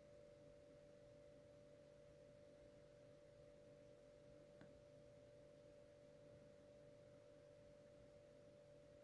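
Near silence: a faint steady hum on the recording, with one faint click about four and a half seconds in.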